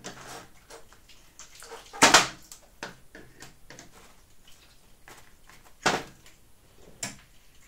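A few short knocks and clatters of steel pliers against the hammer and the plastic tub of oil it lies in, the loudest about two seconds in and two lighter ones near the end.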